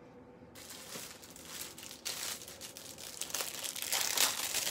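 Irregular crinkling and rustling of something handled close to the microphone, starting about half a second in and getting louder toward the end.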